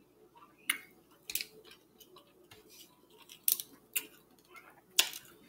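Eating cooked mussels and shrimp by hand: about five sharp clicks and snaps of shells being pried and pulled apart, with soft crackling and chewing between them.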